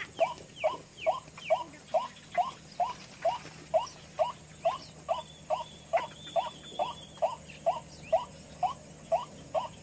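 White-breasted waterhen call, one short rising note repeated steadily a little over twice a second, with fainter, higher calls over it.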